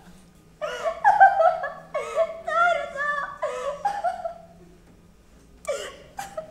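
A woman's high, wavering voice for about four seconds, sliding up and down in pitch, then two short gasping breaths near the end.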